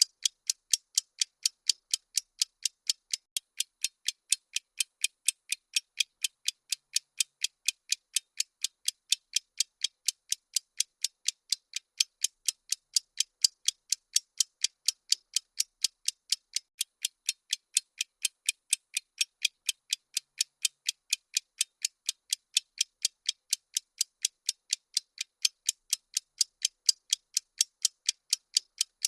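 Countdown-timer ticking sound effect: sharp, high clock-like ticks at an even rate of several per second, with no deeper sound under them.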